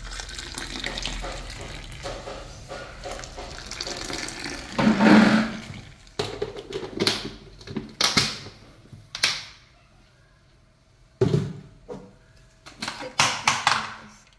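Water poured in a steady stream into ceramic cups, swelling about five seconds in. After that comes a string of short clinks and knocks.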